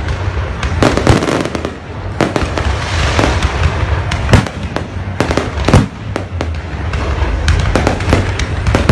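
Fireworks going off: many sharp bangs in quick, irregular succession over a continuous low rumble.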